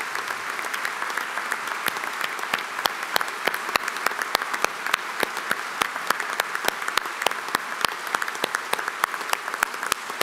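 Sustained applause from a large assembly: a steady wash of many hands clapping, with the sharp, louder claps of one close clapper standing out irregularly on top.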